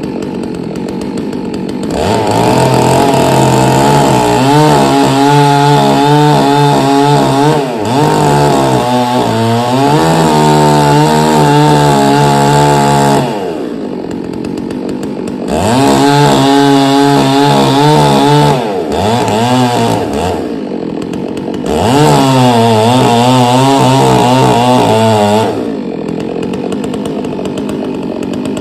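A 1997 Dolmar 6800i two-stroke chainsaw idling, then revved to full throttle three times for several seconds each, its pitch wavering and dipping as it cuts ash wood, and dropping back to idle between cuts.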